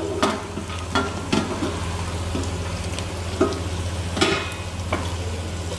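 Diced vegetables sizzling in hot oil in a pot, with several short knocks and scrapes of a wooden spatula against the pot. A steady low hum runs underneath.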